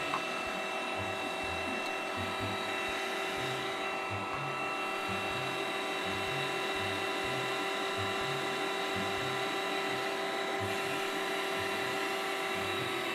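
Electric meat grinder running steadily under load, with a constant motor whine and an uneven low churning as its auger forces pink slime out through the cutting plate.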